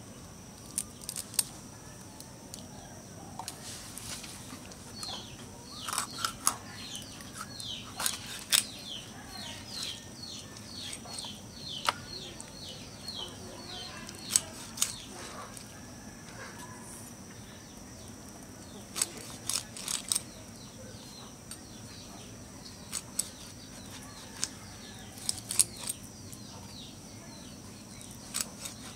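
Boal (wallago catfish) being cut on a boti, a curved upright blade: scattered sharp clicks and snaps as the blade goes through the fish. A bird chirps in a quick run of short falling notes from about five seconds in to about sixteen seconds.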